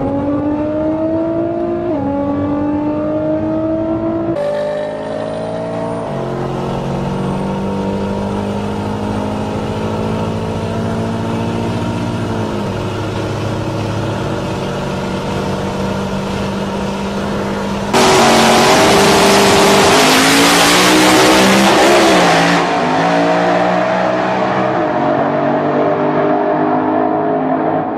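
High-powered car engines at wide-open throttle. One accelerates hard, rising in pitch with upshifts about two and four and a half seconds in, then holds a steady drone. About eighteen seconds in, a louder, harsher engine run cuts in, its pitch rising and falling.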